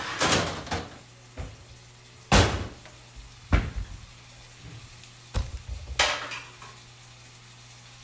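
Kitchen clatter: about five sharp knocks and bangs of cookware and cupboards being handled, the loudest two about two and a half and three and a half seconds in.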